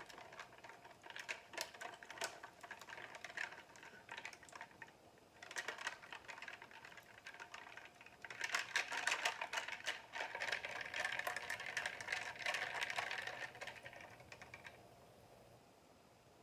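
Straw being worked around in a plastic tumbler of coffee: a run of quick clicks and rattles, busiest in the second half and fading out near the end.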